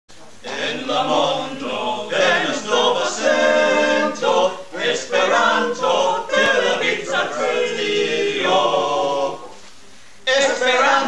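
A small mixed group of men and women singing together in unison without accompaniment, with a short break near the end before they go on.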